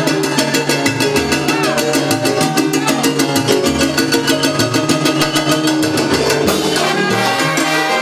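Live salsa big band playing: a trumpet and trombone section with saxophones over piano, bass and Latin percussion (timbales, congas, bongo), the percussion keeping a quick, steady beat.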